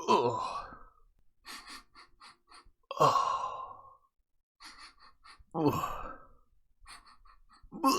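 A person sniffing in short quick bursts and letting out four disgusted 'eugh' groans, each sliding down in pitch, in reaction to a bad smell.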